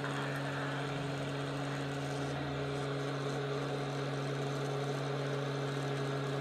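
Steady electrical hum with an even hiss of moving air, the blower of a hot air reflow station left running.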